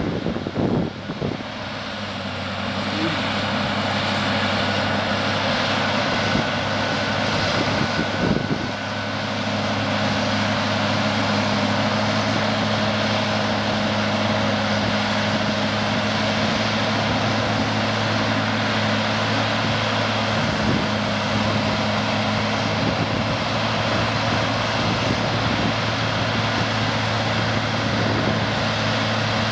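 CLAAS Xerion tractor's diesel engine running steadily under load while pulling a soil-working implement, a constant drone with a low hum. Wind buffets the microphone in the first couple of seconds and again about eight seconds in.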